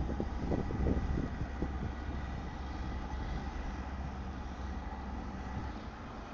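Low, steady drone of a boat engine, with wind buffeting the microphone over the first second or two.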